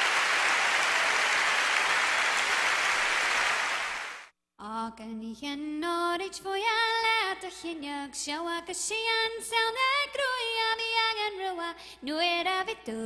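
Audience applause for about four seconds, cutting off abruptly. Then a woman sings alone, unaccompanied, into a microphone: a slow melody with long held notes.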